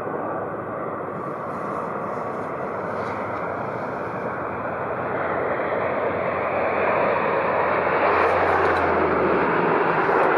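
Jet engines of an Air Canada Boeing 767 at taxi power as it rolls onto the runway to line up, a steady rush growing gradually louder.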